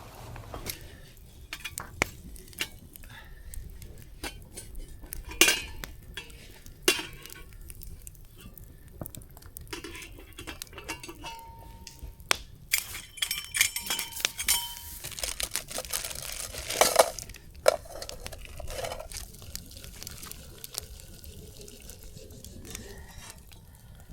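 Camp dishes and metal utensils clinking, knocking and scraping at irregular moments, with a busier stretch of handling in the middle.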